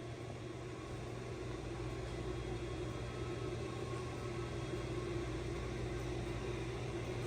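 Steady mechanical hum with a few constant low tones over a faint noise, unchanging throughout.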